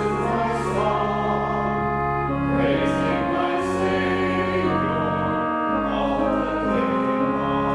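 Choir singing a slow hymn with instrumental accompaniment, held chords changing every second or two over a steady bass.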